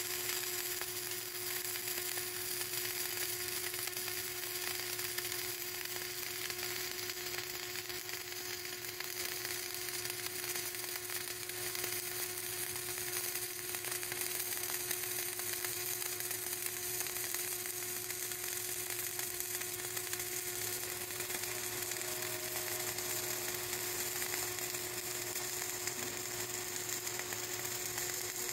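Flux-cored arc welding: the welding gun's arc crackling and sizzling steadily as it lays a fillet weld on a pipe joint, with a steady hum underneath.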